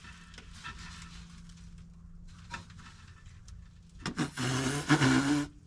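A man's strained, wordless grunt lasting about a second and a half, about four seconds in, from the effort of twisting a stuck radiator drain petcock. Before it, faint rustling and a few small clicks.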